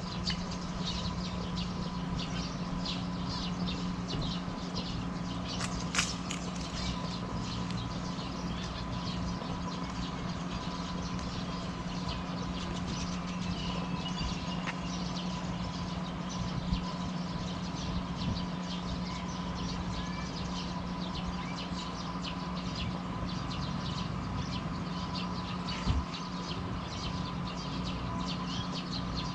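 Outdoor ambience of many small birds chirping continuously over a steady hum, with a brief sharp knock about six seconds in and another near the end.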